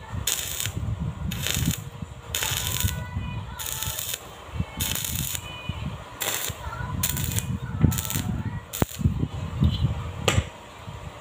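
Stick arc welding on steel frame tubing: the arc crackles and sputters in a series of short bursts, about a dozen, each under a second, as short tack welds are laid.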